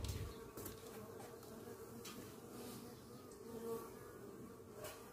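Faint, steady buzzing of Iraí stingless bees (Nannotrigona testaceicornis) flying around the entrance of their hive box, swelling briefly past the microphone a little after halfway. A soft low bump right at the start.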